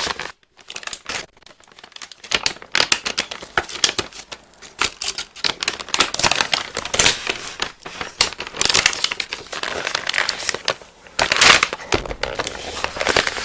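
Food packaging being crinkled and torn open close to the microphone: dense, irregular crackling and rustling.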